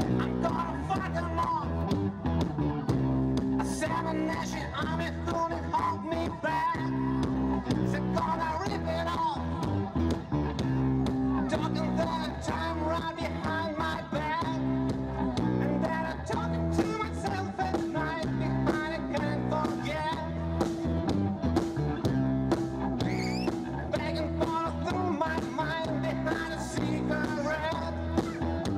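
Rock cover band playing live, with electric guitar, bass and drums and a singing voice over a steady beat.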